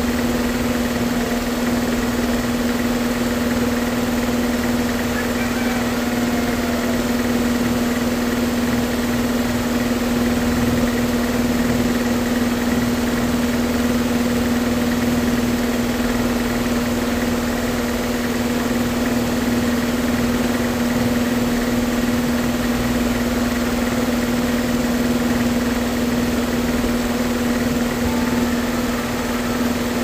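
A machine's steady hum: one constant low tone with a fainter higher tone, unchanging throughout.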